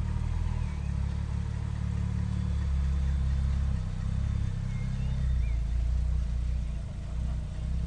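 Jaguar XK120's straight-six engine running with a low rumble, dipping briefly near the end.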